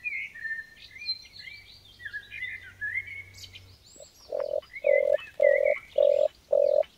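Birds chirping and twittering for about four seconds, then a caged zebra dove cooing: about five evenly spaced, identical low notes, roughly two a second, louder than the chirping.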